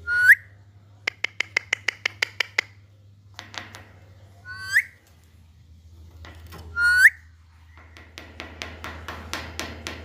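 Alexandrine parakeet giving three loud, short, shrill calls that sweep sharply upward, one near the start, one just before the midpoint and one about two-thirds in. Between the calls come trains of rapid clicking chatter, about six clicks a second.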